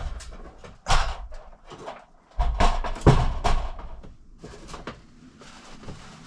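Knocks and thumps of interior trim being pulled and handled inside a truck cab: one sharp knock about a second in, a louder run of thumps about two and a half seconds in, then quieter scraping and rustling.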